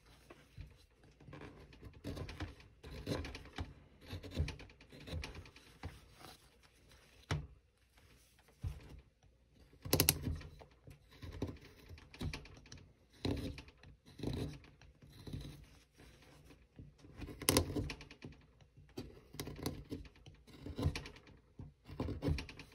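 Small hand carving tool cutting into basswood: an irregular run of short slicing and scraping cuts, with two louder, sharper cuts about ten and seventeen seconds in.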